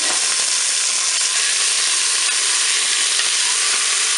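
Beef meatballs sizzling loudly and steadily in hot oil in a Cookeo multicooker bowl as they brown, with a few faint knocks of a wooden spatula turning them.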